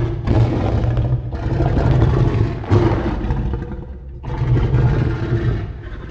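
A kaiju monster sound effect for a Godzilla-style creature: a loud, rough, low noise that swells and dips in three surges, easing off briefly about a second in and again about four seconds in.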